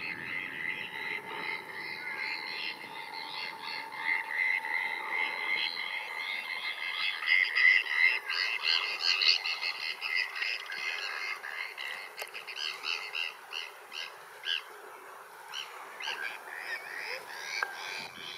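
Flock of Bonaparte's gulls calling, with many short calls overlapping. The calling is thickest in the middle of the stretch and thins out toward the end.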